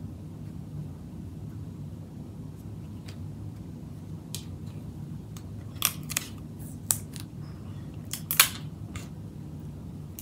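A scattering of sharp clicks and snaps from hands working with craft materials close to the microphone, with a pair about six seconds in and the loudest cluster about eight seconds in. A steady low hum runs underneath.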